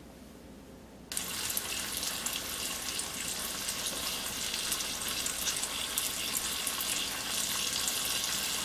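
Marinated tofu block frying in shallow oil in a nonstick pan: a steady crackling sizzle that starts abruptly about a second in. The tofu is being fried slowly over low heat.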